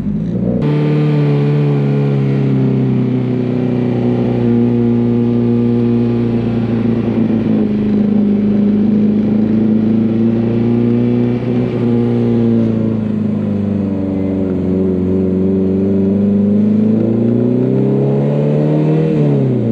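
Honda S2000's four-cylinder engine and exhaust under way, the engine note rising and easing several times as the car is driven, with a climb that drops off sharply near the end.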